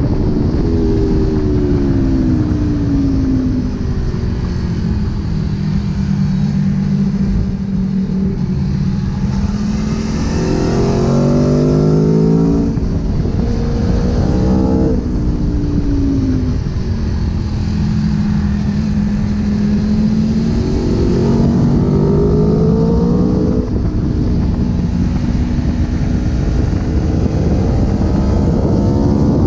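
Aprilia Tuono V4's V4 engine heard onboard at track speed, over steady wind rush. The engine note falls as the bike slows near the start, climbs with gear changes, drops again in the middle, then climbs once more.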